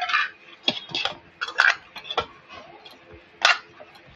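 Dough being kneaded by hand in a stainless steel bowl: a handful of short, irregular taps and clinks as the steel bowl shifts and knocks under the kneading.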